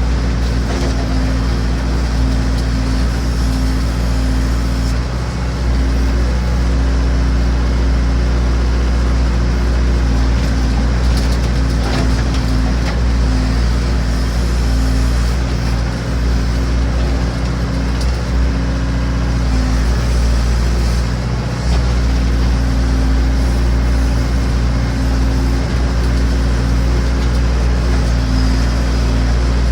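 Massey Ferguson BX 50 backhoe's engine running at a steady speed, a constant low drone that does not rise or fall.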